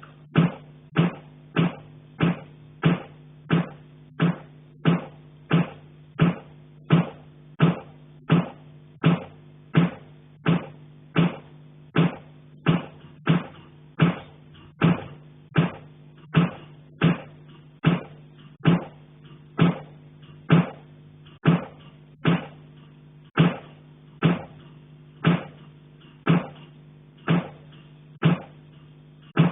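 Knocking on a heating pipe: sharp, evenly spaced blows, about one and a half a second and unbroken, over a steady low hum.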